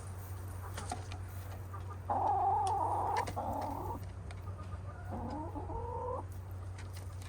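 Domestic hens calling: two drawn-out calls, the first about two seconds in and lasting nearly two seconds, the second around five seconds in, over a steady low hum.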